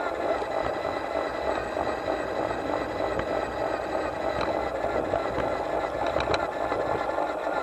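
Garden-railway model locomotive running along its track, heard from a camera mounted on the loco: a steady rattling rumble of wheels and running gear on the rails, with a couple of faint clicks.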